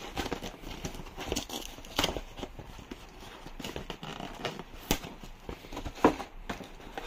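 Cardboard firework box being handled and opened by hand: irregular cardboard scrapes, rustles and taps, with a few sharper knocks about 2, 5 and 6 seconds in.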